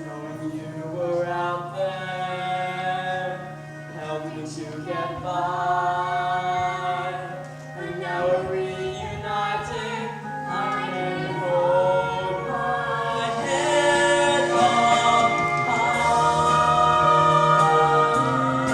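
A chorus of young voices singing a musical-theatre number over instrumental accompaniment, getting louder in the second half.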